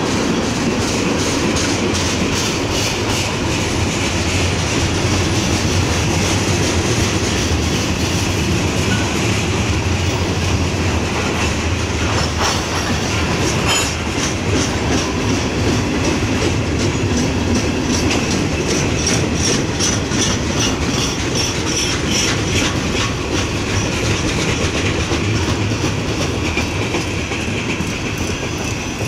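Freight cars of a mixed train (tank cars, covered hoppers, gondolas) rolling past close by: a steady rumble with a running clatter of wheels over the rail joints. The last car goes by near the end and the sound starts to fall away.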